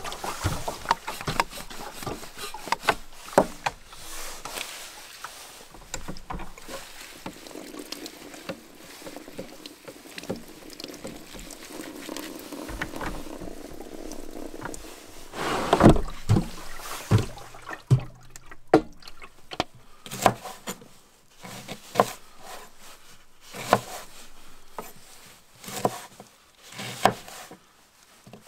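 Water running from a plastic jerrycan's spigot into a container, then a thump, then a chef's knife chopping Brussels sprouts on a wooden cutting board in irregular knocks about once a second.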